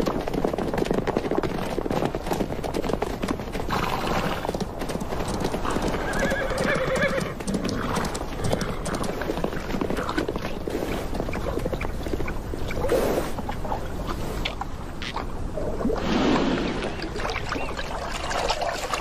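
Hooves of a herd of Namib Desert horses clattering over hard desert ground, with a horse whinnying about six seconds in. Near the end, water splashes and drips as a horse drinks from a trough.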